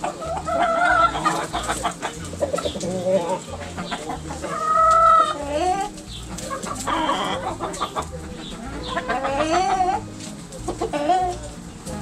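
Backyard chickens clucking and calling, several birds at once in short, overlapping calls. About halfway through comes one longer drawn-out call, the loudest.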